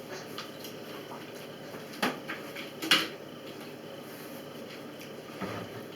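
A few sharp clinks and knocks of plates and cutlery, with two louder ones about two and three seconds in.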